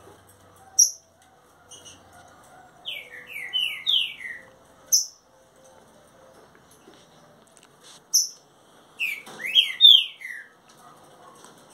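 Green-winged saltator (trinca-ferro) singing: two loud phrases of four or five whistled notes, each note sliding downward, about three and nine seconds in, with sharp single high notes between them. Breeders call this song a "virote com ronco repicador".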